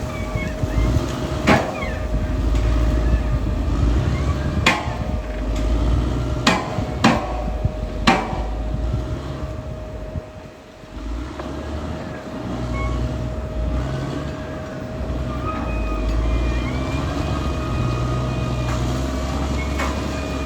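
Caterpillar D6R XL bulldozer working: the diesel engine runs under varying load with a steady whine above it. Sharp metallic clanks come five times in the first eight seconds, and the engine eases off briefly about ten seconds in.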